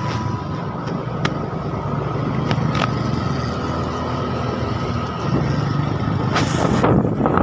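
Motorcycle engine running at low speed in slow traffic, getting a little louder about five seconds in. Near the end come brief rushes of wind noise on the microphone.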